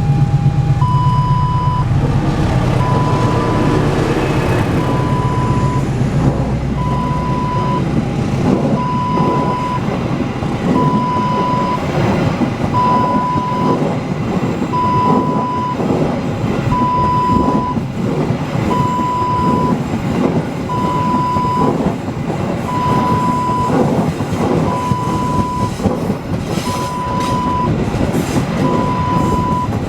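A diesel-hauled train passing close by: the locomotive's engine at first, then a long run of wheels clacking over rail joints as the cars go by. Throughout, an electronic warning beep sounds about once every two seconds.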